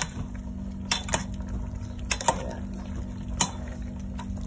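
A metal ladle clinking against a metal cooking pot about five times as broth is scooped and poured over cabbage leaves, with liquid splashing. A steady low hum runs underneath.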